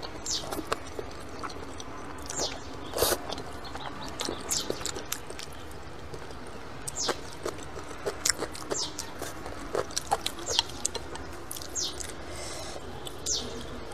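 Close-up eating sounds: saucy noodles slurped in and chewed, with many short wet lip smacks and mouth clicks. A louder slurp comes about three seconds in.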